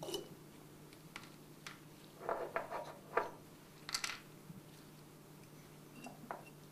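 Light handling noise from a glass test tube knocking against a wooden test tube rack. A short rattle of small clicks comes about two seconds in, then sharper single clicks about three and four seconds in, over a steady low hum.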